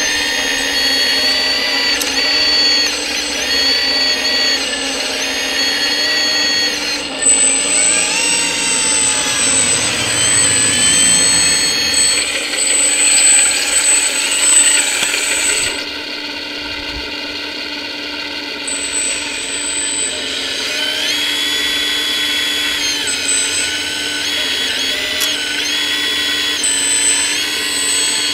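Electric hydraulic pump of an RC hydraulic excavator (Kabolite 336) whining continuously as the boom and bucket work. The pitch dips and recovers as the hydraulics come under load, and it runs quieter for a few seconds past the middle.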